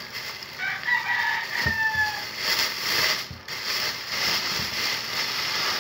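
Clear plastic wrapping bag crinkling and rustling in repeated swells as it is pulled open by hand. A rooster crows once in the background about a second in, a single drawn-out call that falls slightly in pitch.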